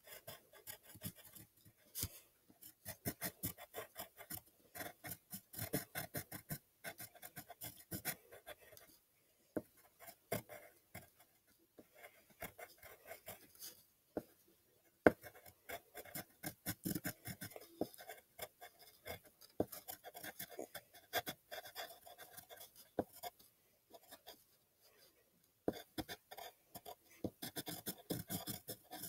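Pencil drawing on paper: runs of quick, short scratchy strokes with brief pauses between them. One sharp tap about halfway through.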